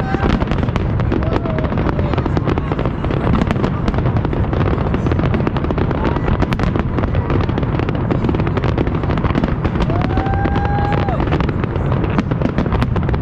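Aerial fireworks display: a dense, continuous barrage of rapid crackles and pops over a steady low rumble of bursts.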